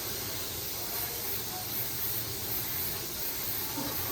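Steady hiss of a paint spray gun spraying coating onto an alloy wheel.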